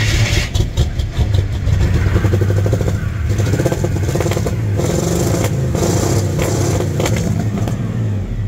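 Old pickup truck's gasoline engine firing up after repeated cranking attempts and running rough, blipped with revs while still cold with no oil pressure built up. The engine had been hard to start and was expected to be fouled with carbon and ethanol in the throttle body.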